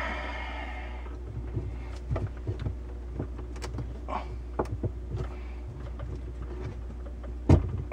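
Handling noises of plastic water-filter tubing and fittings under a sink: scattered light clicks and taps, with one louder knock near the end, over a steady low hum.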